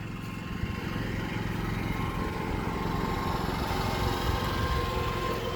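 Yamaha NPS 5500 generator with an Eco Kit running steadily with no load.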